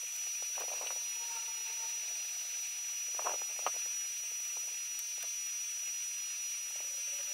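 Steady background hiss with a faint, steady high-pitched whine, and a couple of faint light clicks a little over three seconds in as masking tape and a pen are handled.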